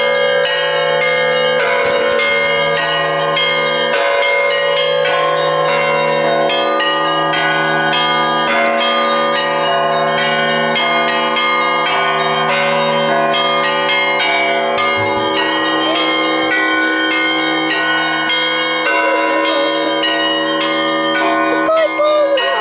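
Russian Orthodox church bells ringing continuously: many bells struck in quick succession over a low bell that swells again every couple of seconds.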